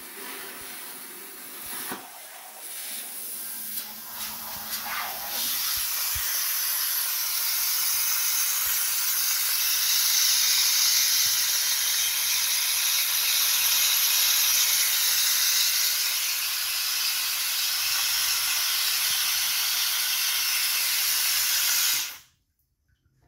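CNC plasma cutter torch cutting 1/4-inch steel plate: a loud, steady hiss of arc and air, uneven for the first few seconds, that cuts off suddenly near the end.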